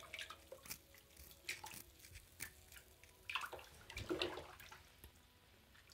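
Hands moving in bathwater: small splashes and drips, with a few louder splashes a little past the middle.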